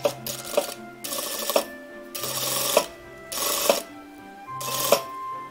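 Sewing machine stitching a zipper onto waterproof fabric with a zipper foot, running in about five short, irregular bursts, each ending in a sharp click as it stops, over steady background music.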